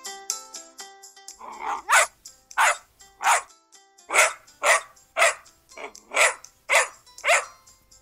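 A short musical jingle fades out, then a puppy barks over and over, about ten barks at roughly two a second.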